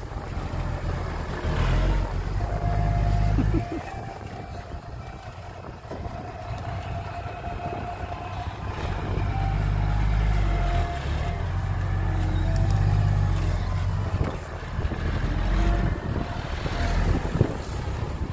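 Loaded Hyundai dump truck's diesel engine running under load as it drives over rough field ground. The deep engine rumble swells and eases several times, with a thin steady whine above it.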